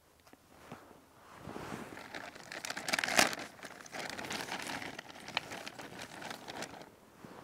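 A bag of kindling wood rustling and crinkling as a hand rummages in it and pulls out pieces, loudest about three seconds in.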